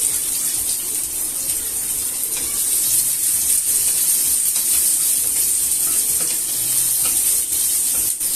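Chopped onions sizzling steadily in hot oil with cumin seeds, a continuous high hiss with faint crackles.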